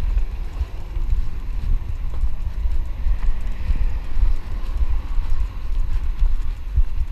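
Walking footsteps jolting a body-worn action camera: a continuous run of low, uneven thumps and rustle. A car passes on the street about halfway through.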